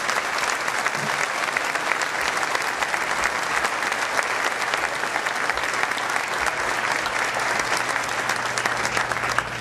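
A large seated audience applauding steadily: many hands clapping together at once.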